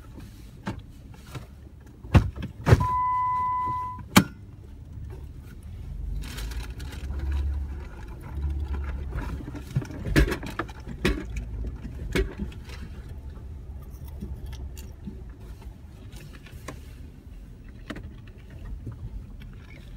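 Jeep driving slowly over a rough, snow- and slush-covered gravel road: a steady low engine and tyre rumble with scattered knocks and thumps from the bumps, the sharpest about two and four seconds in. About three seconds in, a steady electronic beep lasts about a second.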